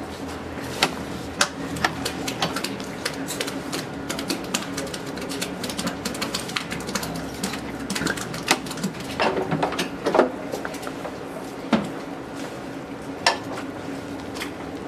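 Dairy cows eating feed close up: irregular crunching, clicking and licking as they take up and chew the feed, with a few louder knocks. A steady low hum runs underneath.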